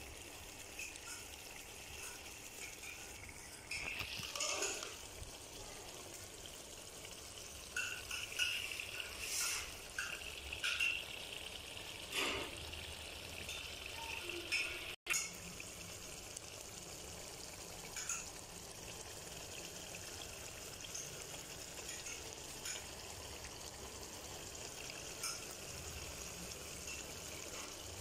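Aloo baingan curry simmering in a steel pot: a steady low hiss, with a few scattered light clicks and scrapes.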